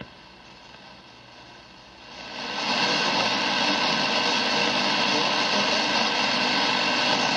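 Hiss and static of band noise from an AM communications receiver's loudspeaker with the station it is tuned to off the air: the transmitter's carrier has been dropped, so the noise comes up about two seconds in and holds steady. It cuts off suddenly at the end as the carrier returns and quiets the receiver.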